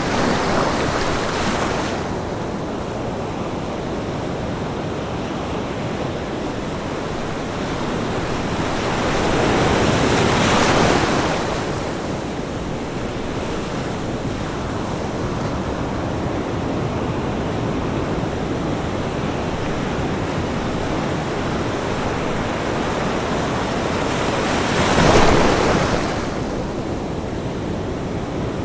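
Ocean waves breaking on a beach: a steady wash of surf with three waves swelling and breaking, one at the start, one about ten seconds in, and the loudest about twenty-five seconds in.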